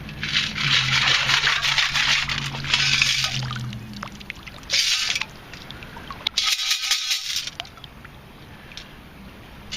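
Metal-detecting sand scoop being dug and shaken, wet sand and water pouring and rattling through it in several bursts. A low steady hum sounds under the first burst and stops about four seconds in.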